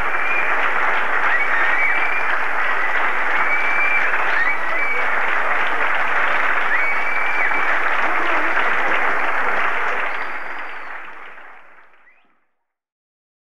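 Audience applauding, with a few short high-pitched tones over the clapping; the applause fades out about ten seconds in and is gone two seconds later.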